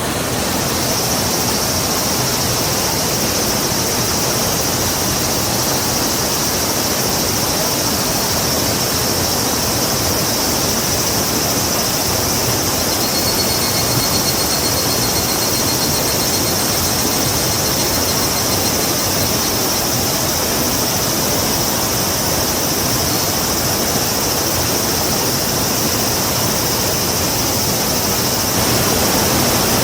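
Rushing river water with a steady, high-pitched insect drone over it. A faint thin whistling tone joins for a few seconds around the middle.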